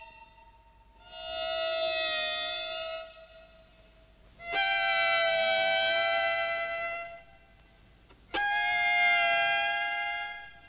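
Violin playing three long held notes with short pauses between them, each a little higher than the last. The first swells in, and the second and third start sharply.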